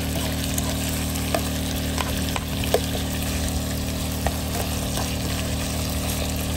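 Rabbit meat with basil stir-frying in an electric wok, sizzling steadily. A white plastic spoon stirs through it, giving a few sharp clicks and scrapes against the pan, the loudest about three seconds in.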